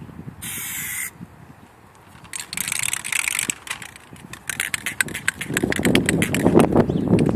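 Aerosol can of Plasti Dip rubber coating sprayed in two short hissing bursts, the second about a second long. Toward the end a fast run of clicking with louder rustling handling noise takes over.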